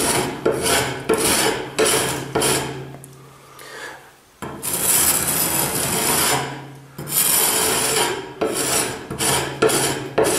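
Small round-tipped steel trowel scraping along a crack in a plaster wall, opening it into a V down to the plaster. Short scraping strokes about twice a second, a quieter lull, then two longer strokes, and quick strokes again near the end.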